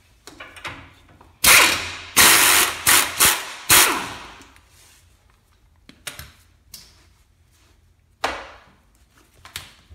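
Air-powered wrench run in several short, loud bursts in the first half, spinning the 18 mm nuts off the pinch bolts on a rear knuckle, followed by a few fainter clicks and knocks.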